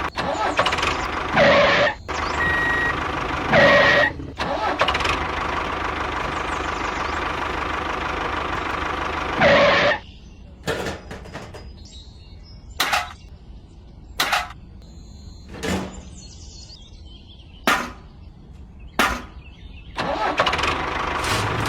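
Small DC electric motor and gearbox of a homemade mini tractor running with a steady whir, with a few louder surges. About ten seconds in it stops, leaving a string of short sharp sounds, and it starts running again near the end.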